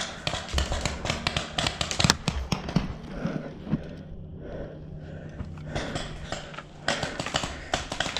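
Quick running footsteps, a fast series of short knocks that thins out for about a second midway through and then picks up again.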